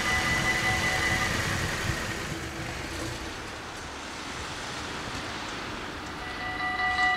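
Dutch level-crossing warning bells ringing, then fading out about a second in as the barriers lift, leaving a quieter stretch of road and outdoor noise. Near the end, another crossing's bells start ringing in a quick pulsing rhythm as its warning begins.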